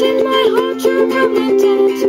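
Stagg ukulele strummed in a steady rhythm of chords, with a woman's voice singing a melody along with it.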